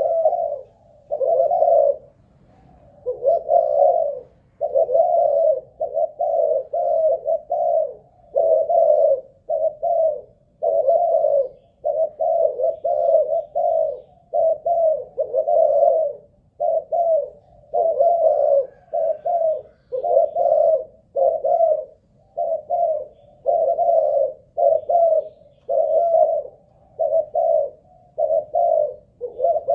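Spotted dove (Malaysian-strain cu gáy) cooing over and over in low phrases of a few notes, with short gaps between phrases. It keeps calling without letting up, the staying power that is prized in a decoy bird.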